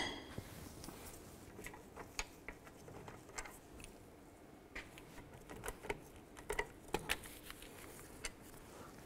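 Faint, scattered clicks and taps of a socket tool and metal brake hardware being handled while the brake caliper bracket bolts are taken off. A few sharper clicks come close together about two-thirds of the way in.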